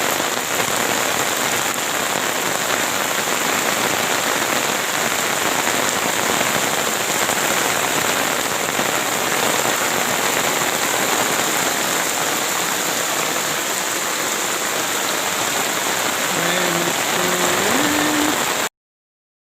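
Heavy rain falling steadily, a dense, even hiss that cuts off suddenly near the end.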